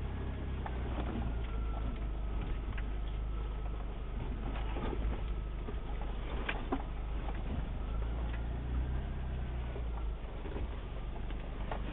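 Off-road vehicle's engine running low and steady, heard from inside the cab, with a few scattered clicks and knocks.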